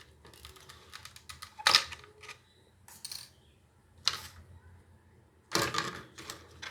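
Small hard parts of a gaming mouse being handled, the removable clutch buttons and the pieces in the box: a scatter of clicks and taps, with a few louder knocks.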